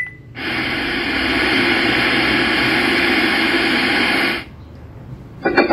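Mini RGB soundbar speaker in FM radio mode putting out steady untuned radio static hiss, which starts just after a mode change and cuts off suddenly about four seconds in.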